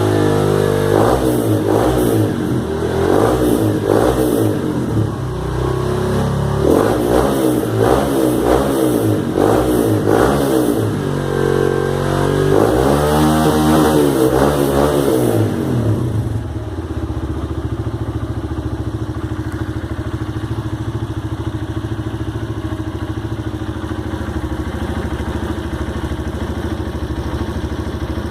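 Honda 150 Mix single-cylinder motorcycle engine breathing through a new aftermarket exhaust, revved again and again in quick blips with the pitch rising and falling. After about sixteen seconds it drops back to a steady, pulsing idle.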